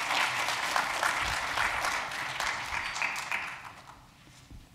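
A lecture-hall audience applauding, a dense patter of claps that fades out about three and a half seconds in.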